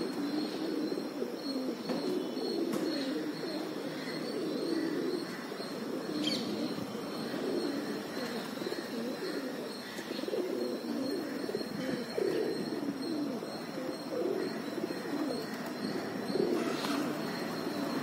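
A flock of feral rock pigeons cooing, many low coos overlapping into a steady murmur.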